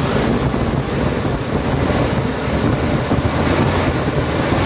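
Mitsubishi 4G63 inline-four gasoline engine running steadily and smoothly, freshly overhauled.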